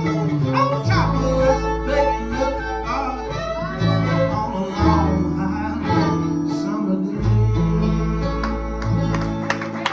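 Live acoustic bluegrass string band playing: plucked guitar, a bowed string line and deep held bass notes.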